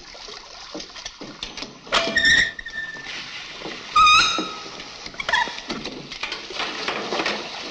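Water spraying from a broken wall pipe fixture, a steady hiss, broken by two sharp knocks, about two seconds in and about four seconds in. Each knock is followed by a short, high-pitched squeak.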